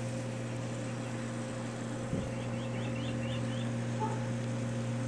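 A steady low hum over even background hiss, with a quick run of about six high chirps about halfway through.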